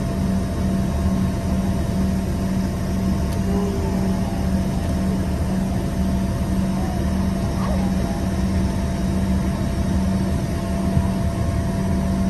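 Steady cabin noise inside an Embraer EMB145 regional jet: the even drone of its two rear-mounted Rolls-Royce AE 3007 turbofans with a constant low hum under a broad hiss.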